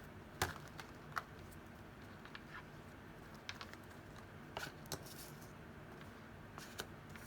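Tarot cards being handled and laid out: a few short, sharp card snaps and taps, the loudest about half a second in, over a faint room hiss.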